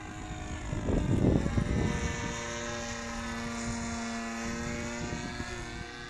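DLE 20cc single-cylinder two-stroke gasoline engine of a radio-controlled scale model plane flying overhead: a steady buzz whose pitch dips in the middle and climbs again. A loud low rumble of wind on the microphone hits about a second in.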